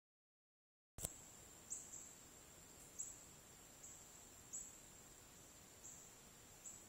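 Faint high-pitched insect calling: a thin steady whine with a brief louder chirp every second or so, starting about a second in after near silence.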